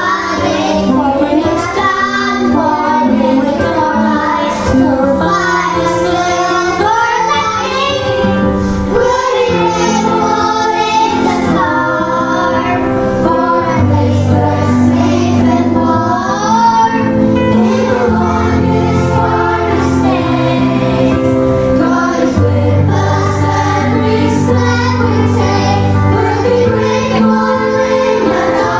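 Children's voices singing a Christian song over a sustained instrumental accompaniment.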